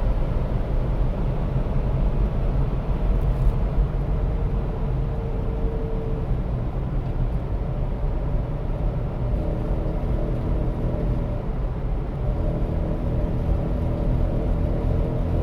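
1995 Jeep Grand Cherokee (ZJ) driving at highway speed: a steady low road and drivetrain rumble, with a buzzing tone that comes in about ten seconds in, drops out briefly and returns.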